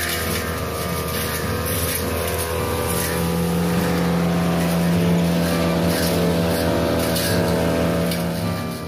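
Backpack brush cutter's small petrol engine running steadily at cutting speed while its blade is swept through a hedge, with faint swishes as it cuts the foliage.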